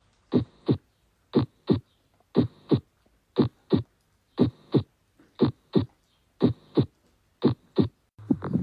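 Heart sounds, the normal 'lub dub': eight clean double beats about one a second, each pair a third of a second apart, with silence between them. Near the end it changes to a faster heartbeat with continuous noise filling the gaps between the beats, an abnormal, murmur-like heart sound.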